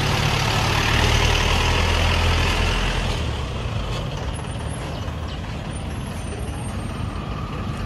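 Motor vehicle engine running steadily under a loud rushing road-and-exhaust noise, which eases off after about three seconds.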